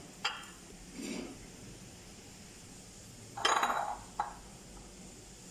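Kitchen utensils clinking and clattering against cookware: a few light clinks, then a louder clatter about halfway through and a short click after it.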